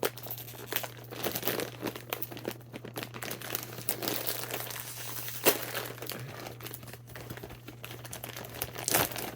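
Snack chip bag crinkling as it is handled, with irregular crackles, the sharpest about five and a half seconds in.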